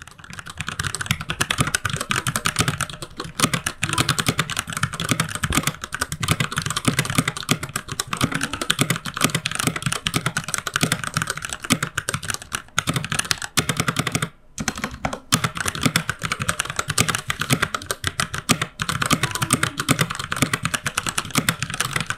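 Keychron K6 mechanical keyboard with Gateron Brown tactile switches in a plastic frame, typed on continuously in a typing test: a fast, dense run of key clacks, broken by a short pause about fourteen seconds in.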